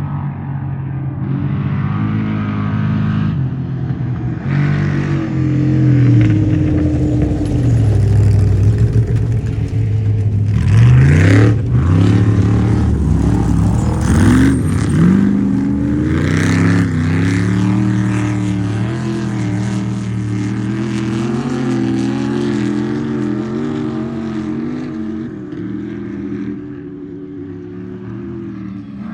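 Off-road race truck engines revving and running hard, their pitch rising and falling again and again. The sound is loudest in the middle, with a sharp climb in pitch and a rush of noise about eleven seconds in.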